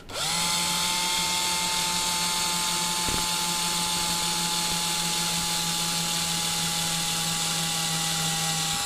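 Small power drill with a metal bit running at a steady, high whine while drilling out the factory rivet on a die-cast toy car's base. It starts just after the beginning, dips slightly in pitch near the end, then stops suddenly.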